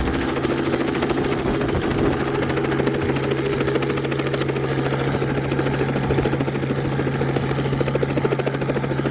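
Helicopter running steadily in flight, a constant engine and rotor hum with a fast, even pulsing of the blades.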